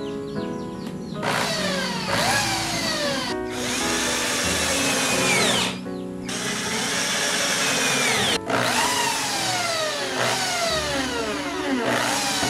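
Cordless drill-driver running in about four long bursts as it drills pilot holes and drives screws into pine lumber, its whine falling away at the end of each burst as the motor spins down. Background music plays underneath.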